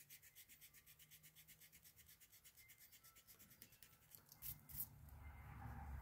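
Mechanical pencil lead scribbling on paper in fast, even back-and-forth strokes, a faint scratching rhythm. The strokes stop a little past halfway, and a few soft handling knocks follow.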